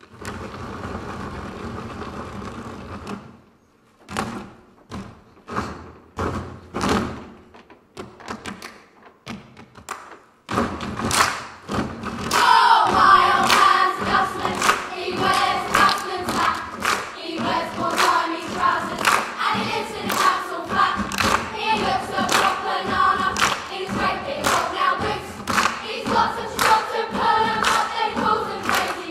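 Ensemble of young performers making percussive thumps: scattered single hits at first, settling into a steady beat about ten seconds in. The group starts singing in chorus over the beat about twelve seconds in.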